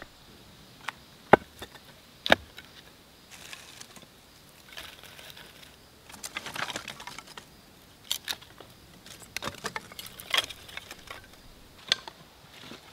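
Split wooden kindling sticks clacking against each other and the rocks as they are stacked into a fire lay, with rustling of wood shavings and birch bark in between. The two sharpest knocks come in the first couple of seconds.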